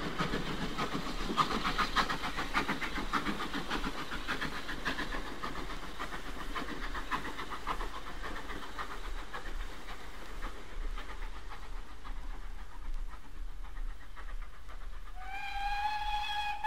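SECR 'H' class 0-4-4T steam tank locomotive working hard up a steep gradient with a light two-coach push-pull train, recovering from a signal check: rapid, sharp exhaust beats that fade as it draws away. About fifteen seconds in a steam whistle sounds and is held, rising slightly in pitch as it starts.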